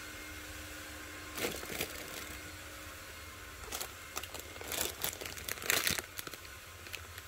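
Plastic packaging crinkling and rustling as it is handled, in several short bursts, the loudest a little past the middle, over a faint steady hum.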